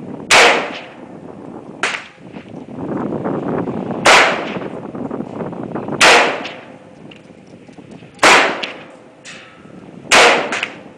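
AK47-S semi-automatic rifle fired single shots at a slow, steady pace: five loud cracks about two seconds apart, each with a short echo, and a fainter crack about two seconds in.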